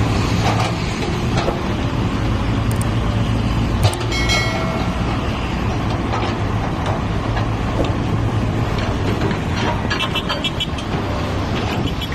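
Komatsu backhoe's diesel engine running steadily. A sharp knock about four seconds in is followed by a brief high tone.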